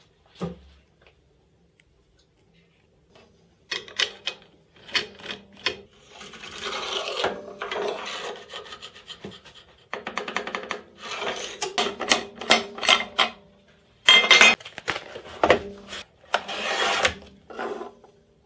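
Aluminium mitre gauge bar sliding back and forth in the mitre slot of an Axminster TS200 table saw: repeated scraping strokes with sharp knocks.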